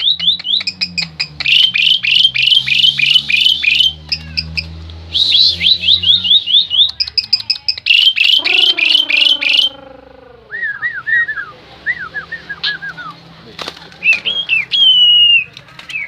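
Asian pied starling (jalak suren) singing loudly in bursts of rapid, sharp falling notes. About halfway through it gives a lower, harsher call, then softer chirps and clear whistles near the end.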